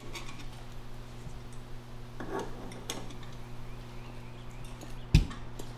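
Small clinks and taps from a homemade gadget of sheet-metal duct, wires and circuit boards being handled in a plastic crate, with one sharp knock about five seconds in, over a steady low hum.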